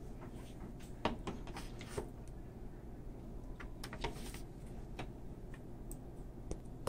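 Soft scattered clicks and taps of a utensil spreading sour cream over layered food in a disposable aluminium foil pan, a handful of short light knocks several seconds apart.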